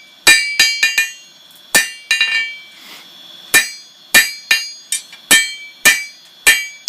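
Hand hammer forging a steel flint striker on an anvil: about fourteen irregular blows, heavy strikes mixed with lighter quick taps, each with a bright metallic ring. The steel is being hammered thinner to even it out.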